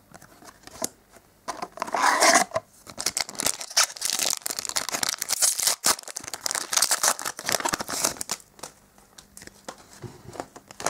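Foil trading-card booster pack being torn open and crinkled, a dense crackling rustle from about one and a half seconds in until about eight seconds, then quieter handling of the cards.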